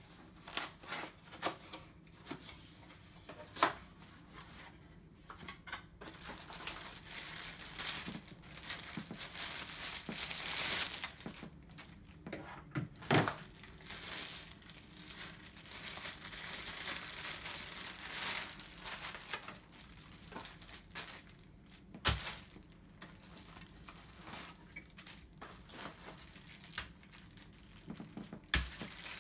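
Unpacking a cardboard box: clear plastic packaging bags crinkling and rustling as wrapped parts are pulled out and handled, with cardboard flaps scraping and a few sharp knocks.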